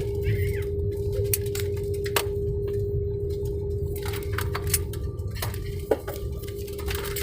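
Airliner cabin noise during the landing roll or taxi: a steady low rumble with a constant hum, and scattered clinks and rattles from loose cabin fittings.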